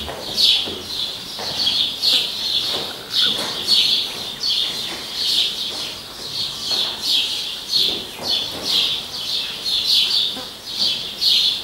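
High-pitched chirping repeated in a steady rhythm, about two chirps a second.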